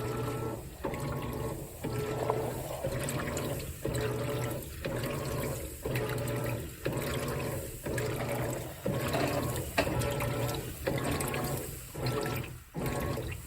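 Whirlpool WTW4815EW1 top-load washer agitating: its single-action agitator swishes water and clothes back and forth with a motor hum, stroke after stroke about once a second, with a brief pause at each reversal.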